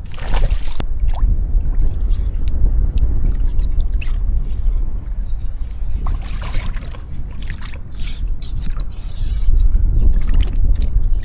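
Wind buffeting the microphone in a steady low rumble, with the splashing and sloshing of someone wading through shallow water.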